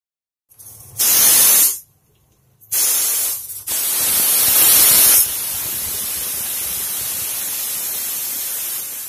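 Aluminium pressure cooker's weight valve whistling, steam hissing out as it vents: three loud bursts in the first five seconds, then a steady, quieter hiss that fades near the end. The cooker is up to pressure with chana dal cooking inside.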